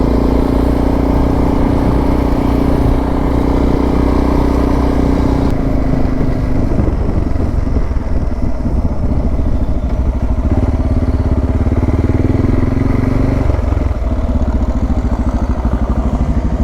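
Suzuki DR650 single-cylinder four-stroke engine running steadily under way, then dropping about six seconds in to a slower, lower beat as the bike slows.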